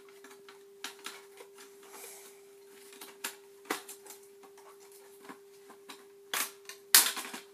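Irregular small plastic clicks and knocks from the pulled-apart parts of an HP laptop docking station being handled, the loudest pair near the end, over a faint steady hum.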